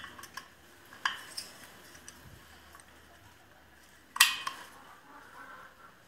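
Metal engine parts and tools clinking against each other as they are handled during reassembly: a few sharp clinks in the first second and a half, and the loudest one about four seconds in, each ringing briefly.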